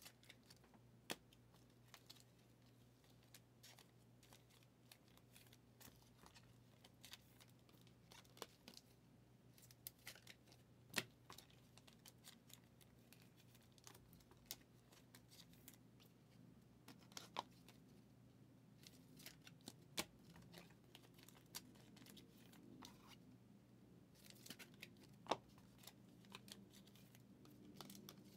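Football trading cards being handled and sorted by hand: faint, scattered clicks and light rustles of card stock sliding and tapping together.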